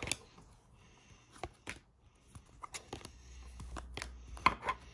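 Select Footy Stars trading cards being flicked through by hand, one after another: irregular light snaps and slides of card stock, with the sharpest snap about four and a half seconds in.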